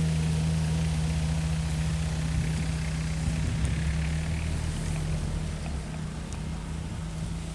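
A motor running with a steady low hum that slowly fades.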